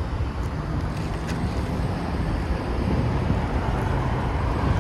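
Steady road traffic noise at a roadside, with wind rumbling on the microphone.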